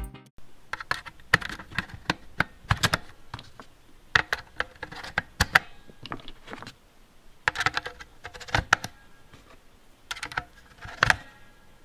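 Groups of sharp plastic clicks and knocks as 18650 lithium-ion cells are pushed into the spring-loaded slots of Opus BT-C3100 battery chargers, one cell after another, a cluster every second or two.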